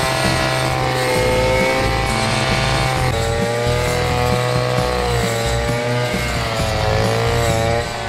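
Small petrol engine running hard, its pitch wavering up and down as the load changes.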